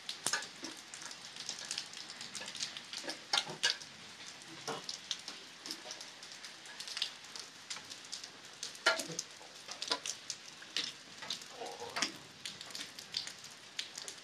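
Rainwater dripping from trees after rain, irregular pattering taps on leaves and surfaces over a faint hiss, the drops shaken loose by the wind.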